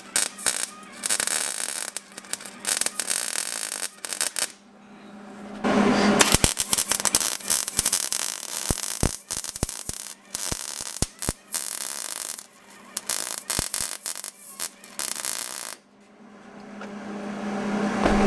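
Electric arc welding on steel bars: crackling and spitting in short stop-start bursts with brief pauses, as the pieces are tack-welded. A steady hum builds near the end.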